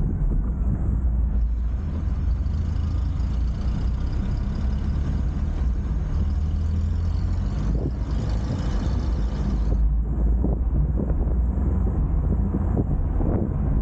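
Steady low road rumble and wind buffeting on the microphone, picked up by a camera clamped to a moving vehicle.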